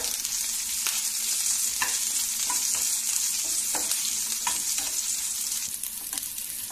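Onions, garlic, dried red chillies and curry leaves sizzling in hot oil in a small non-stick pan for a tempering, with a steel spatula scraping and tapping against the pan in repeated strokes as it stirs them.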